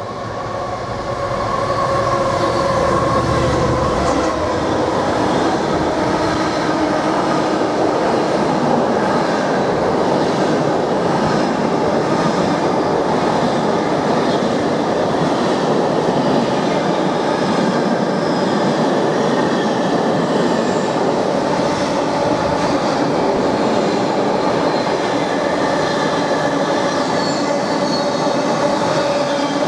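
Freightliner Class 70 diesel locomotive passing through, its engine's low rumble strongest in the first few seconds. A long rake of container wagons follows, rumbling and clattering over the rails with a steady wheel whine.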